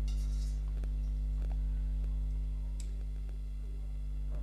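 A steady low hum throughout, with a brief rustle near the start and a few faint ticks as a wire spider skimmer lifts fried fritters out of the oil in a steel wok.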